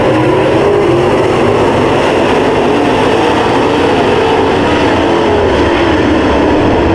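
A field of dirt late model race cars running at speed around a dirt oval: several V8 engines at once, loud and steady, their pitches wavering up and down as the cars go through the turn.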